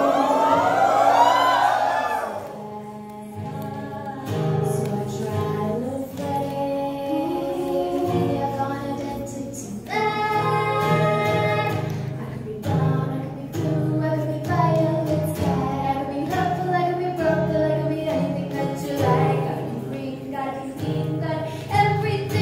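Two women singing a song live, accompanied by an acoustic guitar played by one of them. A swooping vocal run opens it, and a fuller, louder phrase begins about halfway through.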